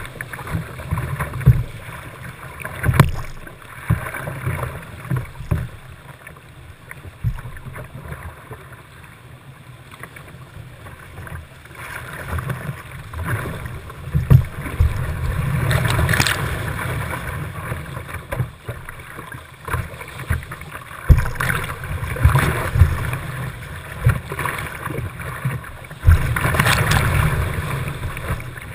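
Whitewater rapids rushing around a kayak, with repeated splashes of water hitting the hull and the camera and a heavy low buffeting rumble. The rush swells louder about halfway through and again near the end.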